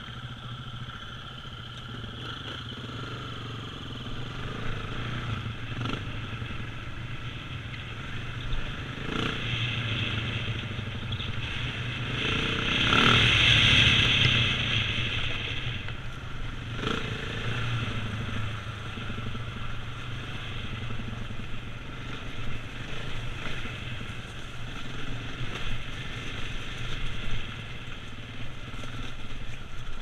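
KTM 690's single-cylinder four-stroke engine running under way on a rough dirt track, swelling louder near the middle, with scattered knocks and clatter from the rough ground.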